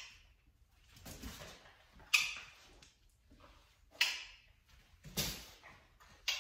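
A dog-training clicker clicking three times, about two seconds apart, each click sharp and brief. Between the clicks come softer thuds and scuffles of the dog moving on the floor.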